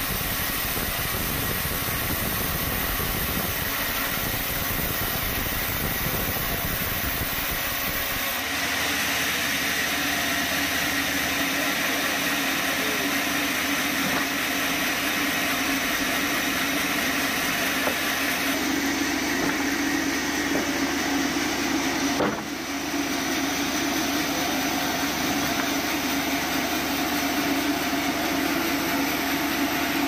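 Large bandsaw mill running, a steady mechanical drone of the motor and saw blade. The sound shifts in character about eight seconds in and again around eighteen seconds, with a brief drop just past twenty-two seconds.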